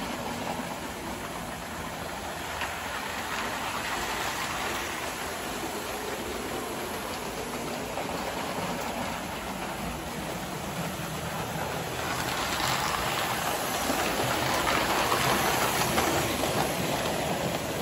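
Model electric trains, including ALCO diesel models, running on three-rail metal track: a steady rumble and rattle of wheels on the rails with motor hum, growing louder over the last several seconds.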